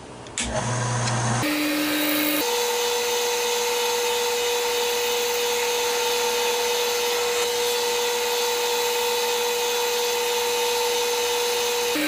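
Lathe running with a steady whine that steps up in pitch twice in the first few seconds and then holds, while a polishing pad is held against the spinning cast resin pen blank, giving an even rubbing hiss as it wet-sands through the fine grits.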